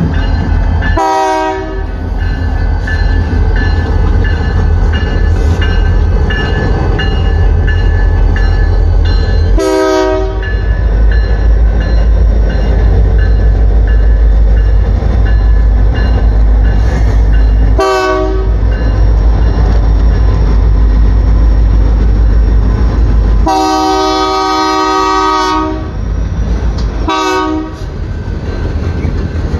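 BNSF diesel freight locomotive pulling a train through a road grade crossing, its engine rumbling low throughout. Its air horn sounds in short blasts about a second, ten seconds and eighteen seconds in, then a long blast about 24 seconds in, followed by one more short blast. Loaded flatcars roll past behind it.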